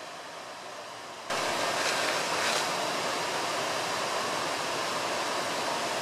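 Fountain water splashing: jets and a cascade falling into a basin make a steady rushing noise. About a second in it jumps louder and brighter, then holds steady.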